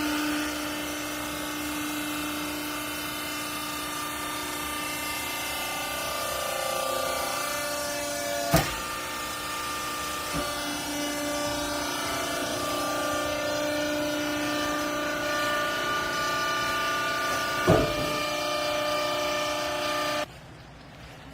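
Vertical hydraulic textile baler's pump motor running with a steady hum made of several held tones, its pitch shifting slightly as the load changes. Two sharp knocks ring out, the first about halfway through and the second near the end, and the machine sound cuts off abruptly just before the end.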